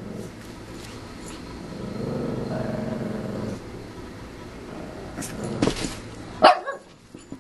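Small dog growling low for about a second and a half, then a single short, sharp bark about six and a half seconds in.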